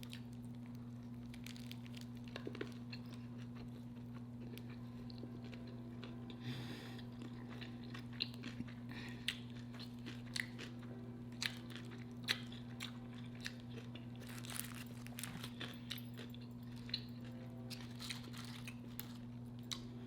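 Close-miked chewing of pickle, with many short, crisp crunches that come thicker in the second half, over a steady low hum.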